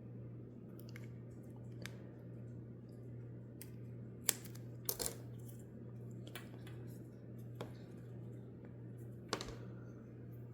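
Scattered light clicks and taps of hands handling strips of thin double-sided tape and a small 3D-printed plastic mount, a few sharper ones about halfway through, over a steady low hum.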